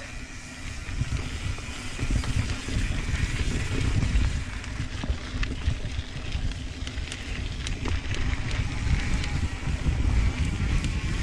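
Santa Cruz Tallboy mountain bike riding fast down a dirt and rock trail: tyres rumbling over the ground, wind buffeting the microphone, and scattered sharp clicks and rattles from the bike over bumps.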